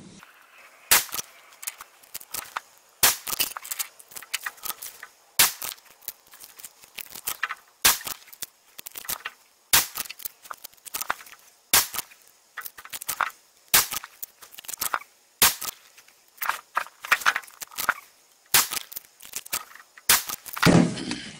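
Savage 12 LRP bolt-action rifle in .260 Remington firing a string of shots about two seconds apart, each a sharp crack, with smaller clicks and knocks between them. The shots are a powder-charge ladder test, each round loaded slightly hotter than the last.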